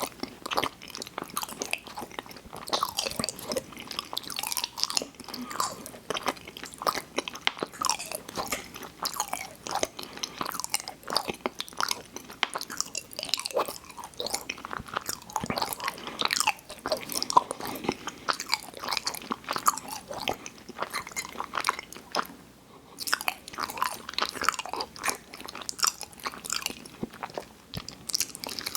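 Close-miked chewing of sweets: a dense, continuous run of small sharp mouth clicks and bites, with a short pause about three quarters of the way through.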